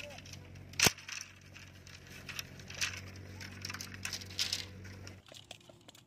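Thin bamboo sticks clattering and knocking together as they are handled and gathered into a bundle, with one sharp crack about a second in. A low steady hum sits underneath and cuts off near the end.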